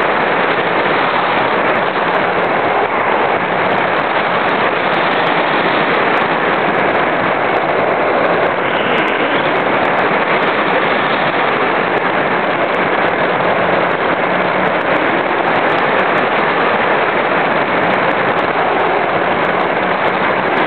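Steady loud rush of airflow over the microphone of a small camera carried aboard a Thrush RC glider in flight, with light crackling scattered through it.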